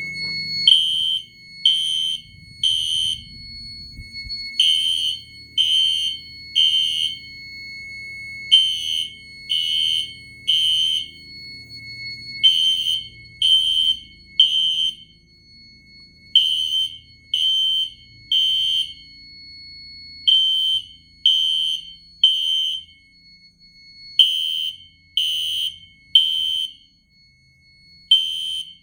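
Fire alarm horns sounding the temporal code 3 evacuation pattern: three short blasts, a pause, then three again, repeating about every four seconds. A faint steady high tone runs underneath.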